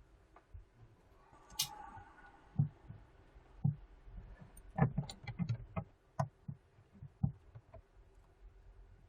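Irregular light taps and clicks from handling a smartphone's parts and small tools on a work surface: one sharp click about a second and a half in, then a quick run of soft knocks and taps in the middle.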